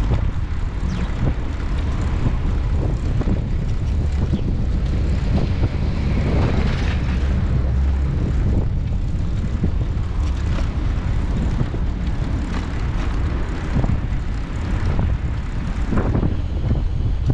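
Steady low rumble of wind on the microphone, mixed with the recumbent trike's tyres rolling on tarmac.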